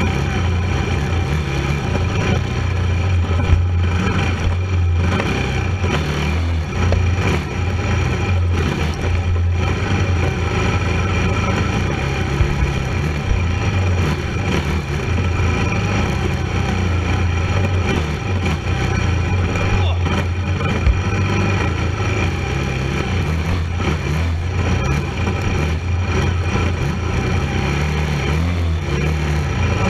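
Racing quad's (ATV) engine running steadily under throttle through the off-road trail, heard close up from a camera mounted on the quad, with a couple of short knocks from the machine hitting bumps.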